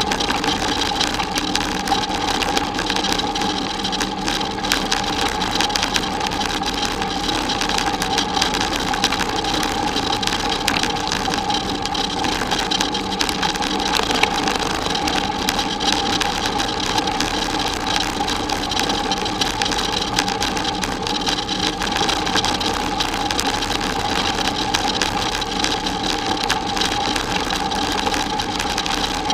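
Bicycle rolling along a gravel road: steady crunch and rattle of the tyres on loose gravel, with a constant hum throughout.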